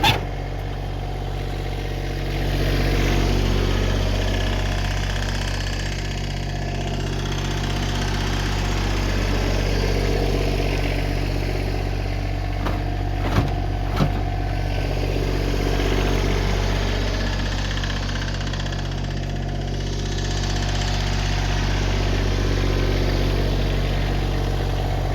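Tractor engine running steadily, its pitch and level swelling and easing a few times as the load changes, with two sharp knocks about thirteen and fourteen seconds in.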